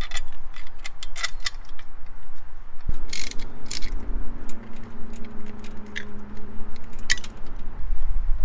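Irregular clicks and clinks of a boost control solenoid and its metal bracket being handled and fitted into place in an engine bay. A faint steady hum sits underneath from about three to seven seconds in.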